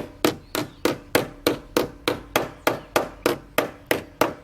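Hammer tapping pop rivets flat on the car's metal body, a steady run of sharp blows at about three a second.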